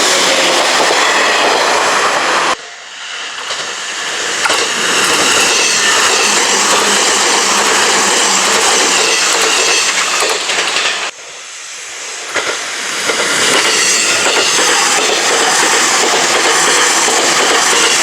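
Izuhakone Railway Sunzu Line electric train running past close by at a level crossing: a loud, dense rush of wheel and running noise. It drops off suddenly about two and a half seconds in and again about eleven seconds in, then builds back up each time.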